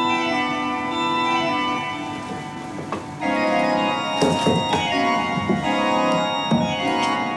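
Pipe organ music: held chords that change every second or so, with a few short sharp knocks around the middle.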